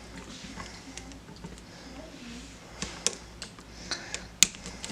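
Scattered light clicks and taps of hand tools against a wall light switch and its wires as the wires are taken off the switch terminals, the sharpest click just after four seconds.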